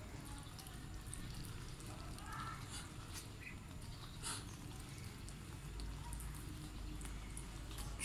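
Muscovy ducks pecking grain from a hand and a tiled floor: scattered soft taps and clicks of their bills, irregular and light.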